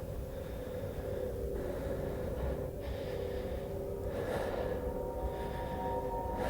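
A person breathing heavily, with breaths about every two seconds, over a steady low drone that gains a higher tone about halfway through.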